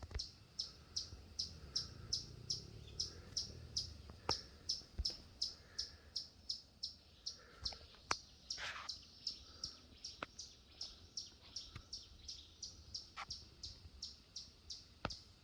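A bird calling a high, short chirp over and over, very evenly at about three a second. A few sharp clicks sound now and then.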